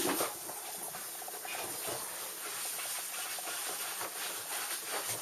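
Steady background hiss with faint small rustles and ticks.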